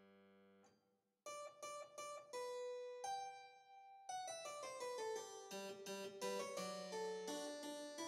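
Quiet harpsichord background music, a fugue. A held chord dies away, and after a brief gap a single line of plucked notes begins, joined by a second, lower line about four seconds in.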